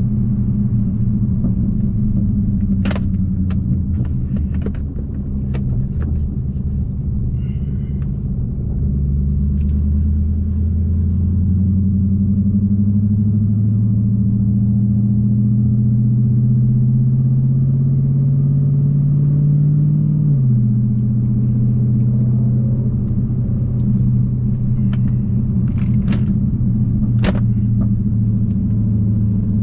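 Dodge Challenger Hellcat's supercharged 6.2-litre Hemi V8 heard from inside the cabin while driving: a steady low rumble, then the engine note climbs slowly for about ten seconds and drops suddenly about two-thirds of the way through. A few sharp knocks are heard near the start and near the end.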